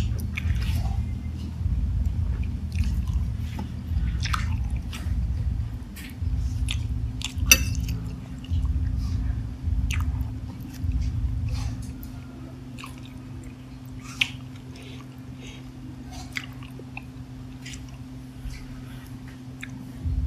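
Close-miked chewing of spicy instant noodles, in repeated bursts, with sharp clicks of a metal fork against the plate, one much louder than the rest about seven and a half seconds in. The chewing stops about twelve seconds in, leaving a low steady hum and a few clicks.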